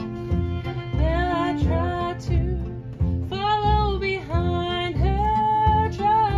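Live acoustic string band playing: upright bass on a steady pulsing beat with acoustic guitar, and a lead melody line coming in about a second in.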